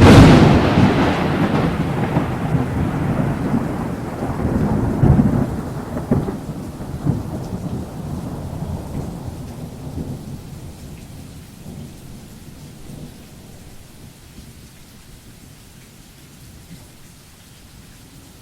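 A sudden loud thunderclap that rolls on in low rumbles, with further swells about five and seven seconds in, and fades away over about twelve seconds, leaving the faint hiss of rain.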